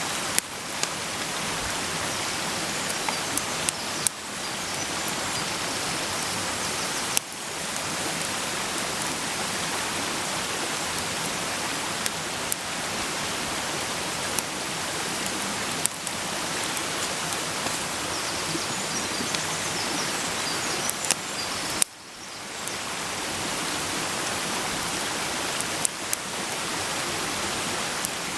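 Food frying in a pan over a campfire: a steady sizzle with scattered sharp pops. The sizzle drops off briefly three times and builds back up.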